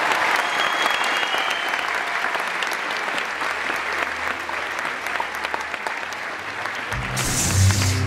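Audience applauding, the clapping slowly thinning out. About seven seconds in, loud music with a heavy bass starts.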